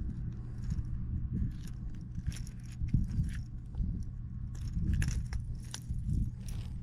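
Light metallic jingling and clicking of handled fishing tackle, irregular clinks, over a steady low hum.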